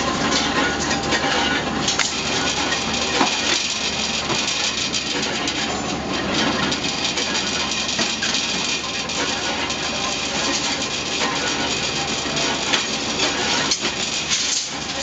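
Electric rebar bending machine running: a steady motor-and-gearbox drone while its turntable bends steel reinforcing bar, with scattered metallic clanks and clicks.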